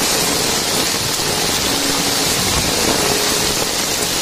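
Muddy floodwater rushing and churning down a narrow channel in heavy rain, a loud, steady roar of water.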